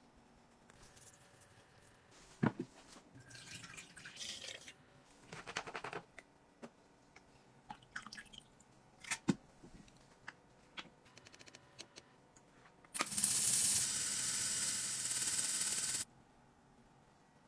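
Scattered small clicks and taps, with a few short scraping rustles, then a loud steady rushing noise that lasts about three seconds and cuts off suddenly.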